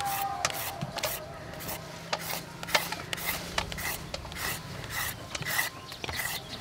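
Hand-held julienne peeler shredding a raw carrot: repeated rasping strokes, about two or three a second.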